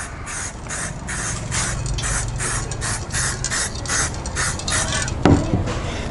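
Aerosol can of silver spray paint sprayed in short, rapid puffs, about three hisses a second, as a topcoat goes over primed plastic parts. There is a single knock about five seconds in.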